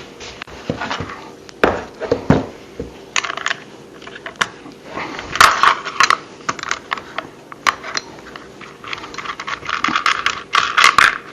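Light metal clicks, clinks and short scrapes of a small electric chainsaw's chain and bar being handled by hand, after the chain has jumped off its track.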